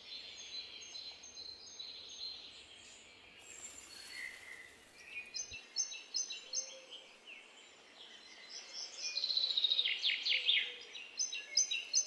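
Small songbirds singing and chirping: repeated short, high notes, and about nine seconds in a louder song that runs down the scale as a quickening series of notes.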